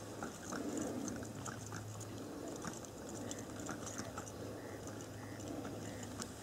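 Quiet open-field ambience: faint scattered ticks and clicks over a low steady hum, with a few faint short chirps about three to six seconds in.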